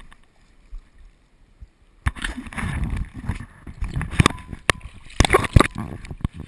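A freshly landed steelhead thrashing, with a run of sharp slaps, knocks and splashing starting about two seconds in. One listener took it for an unusual sound for a steelhead to make.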